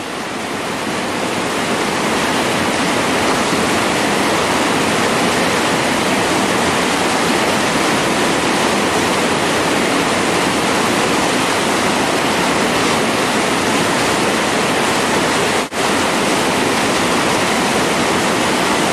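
Whitewater rapids rushing over boulders in a creek: a steady, loud rush of water that swells up over the first couple of seconds. It cuts out for an instant near the end.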